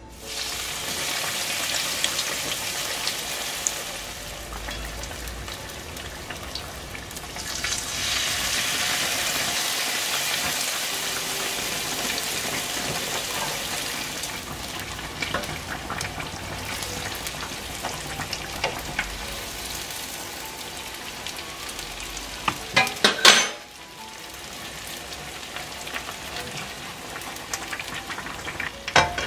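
Cheetos-crumb-coated hot dogs deep-frying in a pan of hot oil, sizzling steadily, louder in the first few seconds and again about a third of the way through. A cluster of sharp clicks and knocks comes about three-quarters of the way in, and another just before the end.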